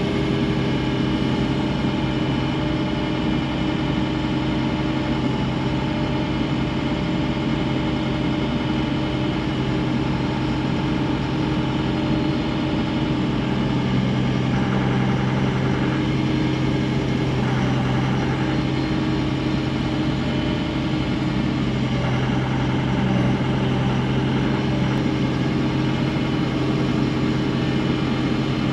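Mecalac 8MCR's diesel engine running steadily, heard from inside its cab while the arm and attachment are worked, with small shifts in its note partway through.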